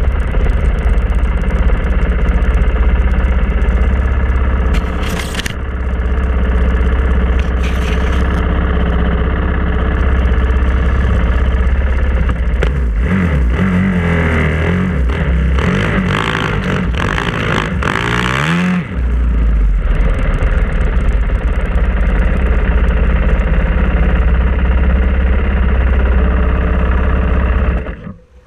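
Dirt bike engine running as it is ridden along a trail. The revs rise and fall several times in the middle, then the sound drops away suddenly at the very end.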